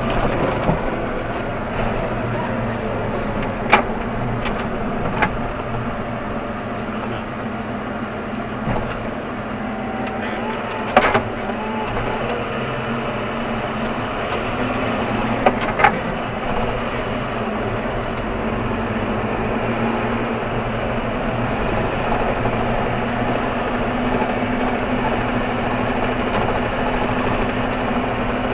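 John Deere 7530 Premium tractor's six-cylinder diesel running steadily at road speed, heard from inside the cab. The turn indicator beeps in a high, regular tone about once a second until about halfway through, and there are a few sharp knocks.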